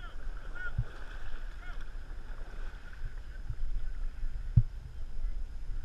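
Dragon boat crew paddling: paddle blades splashing into the water, with a few dull knocks and a steady low wind rumble on the microphone.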